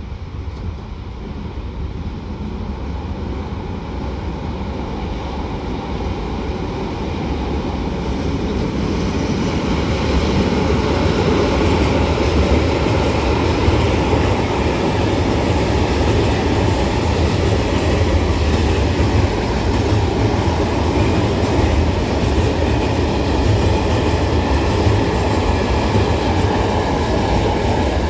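A long freight train of open-top wagons running past, with a steady rumble and rattle of wheels on the rails. It builds over the first ten seconds or so as the train arrives, then holds steady.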